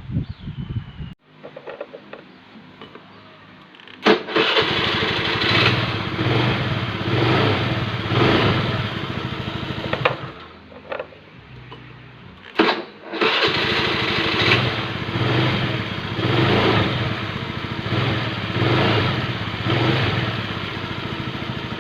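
Honda Vario 110 carbureted scooter engine starting about four seconds in and running, its speed rising and falling in waves. It drops away a little after halfway, then starts again with a sharp burst and keeps running.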